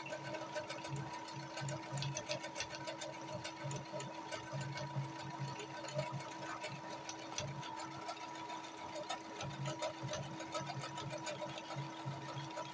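Brother computerized sewing machine stitching out a programmed row of letters: fast, even needle clatter over a steady motor hum. It cuts off abruptly at the very end as the lettering finishes.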